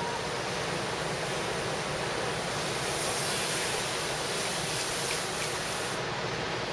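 Steady rushing wash of ocean surf mixed with wind.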